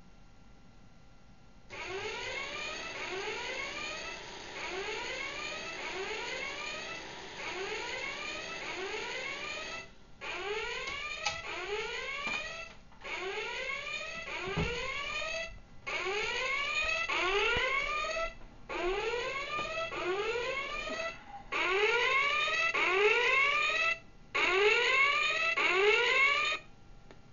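Flying alarm clock's electronic alarm sounding: a repeated rising chirp, about two a second. It starts about two seconds in and later breaks into bursts of a few seconds that grow louder. A single thump comes about halfway through, and the alarm cuts off near the end as the propeller is pushed back into its base to silence it.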